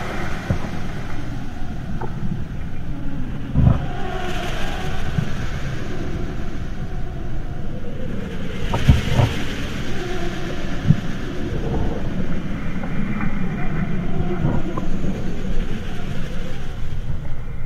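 Wolf dog chewing and gnawing on a raw deer head: continuous wet crunching and grinding, with a few sharp bone cracks, the loudest a little under 4 s in and about 9 s in.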